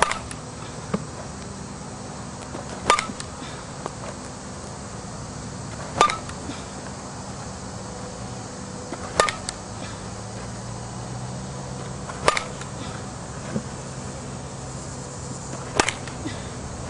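Softball bat striking tossed softballs, six sharp pings with a brief ring, one about every three seconds.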